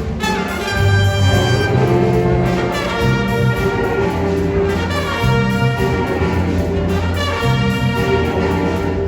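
Instrumental music: sustained chords of held notes over a low bass line, the notes changing every second or so.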